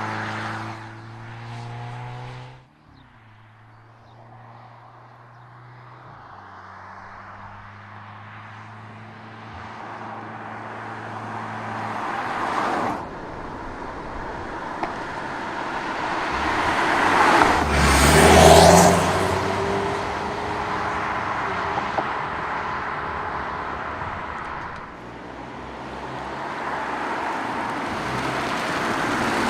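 Hyundai Kona N's 2.0 T-GDI turbocharged engine and exhaust running at steady revs, the pitch stepping a few times early on. Tyre and road noise then build to a loud pass-by about two-thirds of the way through.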